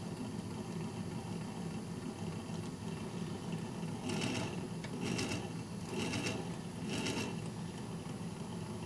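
1951 RCA Victor 45-EY-4 record changer running, its AC motor turning the turntable with a steady low hum. From about four seconds in, a short rustling stroke repeats about once a second, four times. The turntable is not running right.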